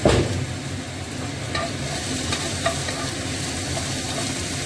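Fish frying in hot oil in a frying pan, a steady sizzle. A sharp knock comes right at the start, and later there are a few light taps of the spatula against the pan.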